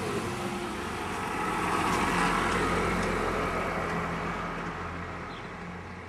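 A motor vehicle passing by: its noise swells to a peak about two seconds in, then fades steadily away.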